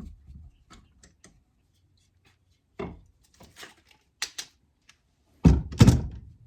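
Woodworking clamps being taken off a glued-up wooden box and put down on a workbench: light clicks and knocks, a short clatter, then two heavy thunks near the end.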